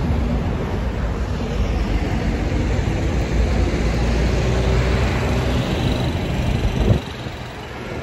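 Road traffic on a busy city street: a steady rumble of passing vehicles that drops off suddenly about seven seconds in.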